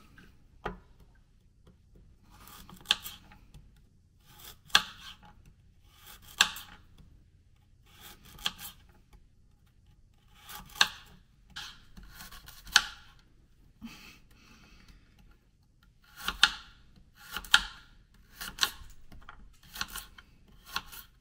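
A vegetable peeler scraping down a carrot in repeated strokes, about a dozen, one every one to two seconds.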